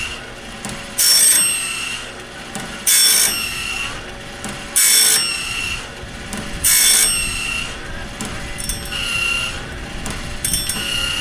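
Woodland Mills bandsaw blade sharpener grinding the blade tooth by tooth: a short gritty grind about every two seconds, each followed by a brief ringing tone, over the steady hum of its motor. The sharpener is running off a weak battery helped by a charger on boost.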